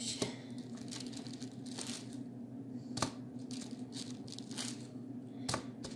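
Wooden rolling pin rolling and pressing polymer clay flat on a tabletop: scattered rubbing and scraping, with three sharp knocks a few seconds apart.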